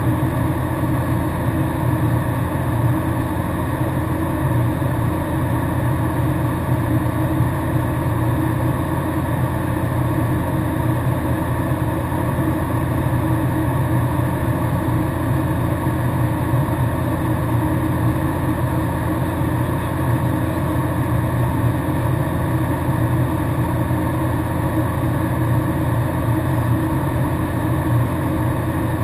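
Cessna Grand Caravan's single turboprop engine and propeller heard from inside the cabin in cruise flight: a steady, unchanging drone.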